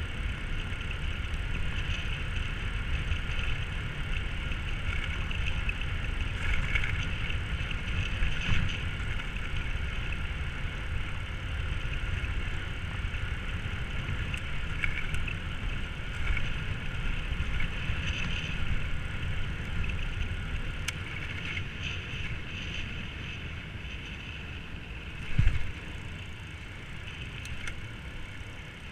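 Riding noise of an e-bike with a Bafang BBS-02 mid-drive motor at speed: wind rumbling on the helmet or chest camera's microphone under a steady high whine. A single thump comes near the end, and the rumble eases after it.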